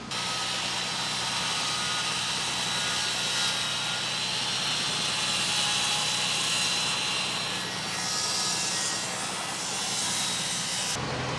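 Handheld electric power tool running continuously with a steady high motor whine, then cutting off suddenly about eleven seconds in as the job is finished.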